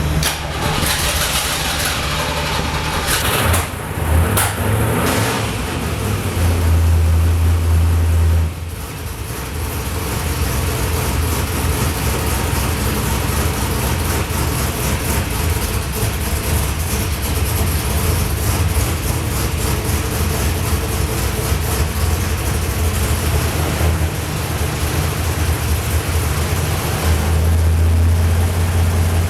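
Carbureted engine running and burping back through its carbs, with a couple of sharp pops a few seconds in. It runs higher for a couple of seconds, drops suddenly to a steady idle about eight seconds in, and picks up again near the end. The owner suspects the ignition timing and means to check it with a timing light.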